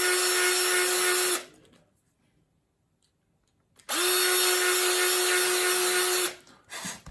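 Small Black & Decker electric drill with a tiny bit running in two short bursts with a steady high whine, enlarging the pivot-pin hole in a straight razor's scale. The first burst stops about a second and a half in, and the second spins up a little later and runs for about two and a half seconds.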